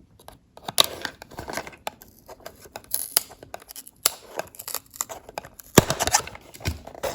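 A small cardboard blind box being opened by hand: an irregular string of small clicks, snips and scratchy scrapes of cardboard and packaging.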